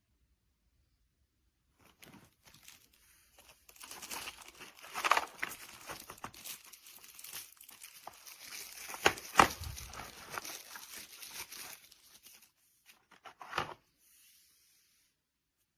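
Crinkling and rustling of something being handled, with many small clicks and a couple of louder knocks about nine seconds in.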